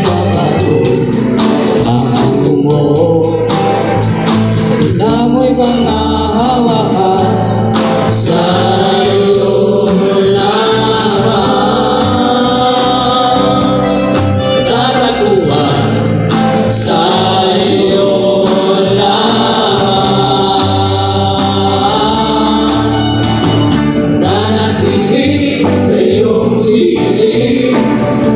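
A men's vocal group singing a gospel worship song together through microphones and PA speakers, backed by a live band.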